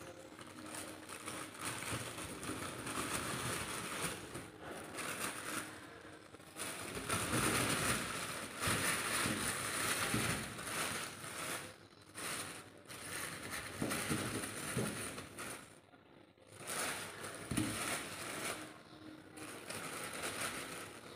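Thin white plastic bag crinkling and rustling as a hand rummages through lumps of charcoal inside it, the lumps shifting and scraping together. It comes in stretches with a couple of short lulls.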